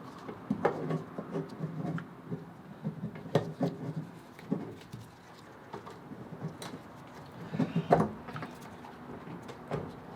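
Irregular clicks, knocks and scrapes of the E30's fuel pump and sender assembly being worked back down into the fuel tank by hand, with a louder knock about eight seconds in.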